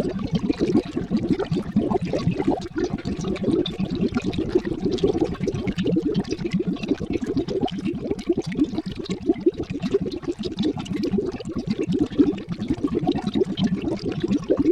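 Cauldron of liquid boiling and bubbling: a steady, dense stream of deep, rapid bubble pops that never lets up.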